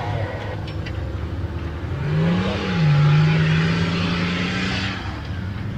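Off-road competition truck's engine revving as it takes off across dirt. Its pitch rises about two seconds in, dips once, then climbs steadily before falling away near the end.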